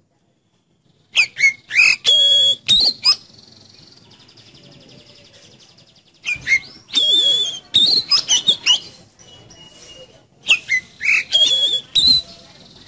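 Oriental magpie-robin (kacer) singing in three loud, varied bursts of song with short pauses between, starting about a second in. The bursts mix sharp whistled notes, quick sweeping chirps and a rapid buzzy rattle.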